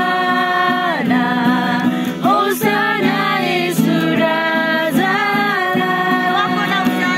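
Women singing to a strummed acoustic guitar, holding long sung notes.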